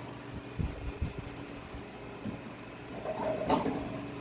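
Close-miked eating sounds as food is handled with fingers and a spoon in a plastic bowl: a few low thuds in the first second or so, then a short scraping rustle about three and a half seconds in, over a steady fan hum.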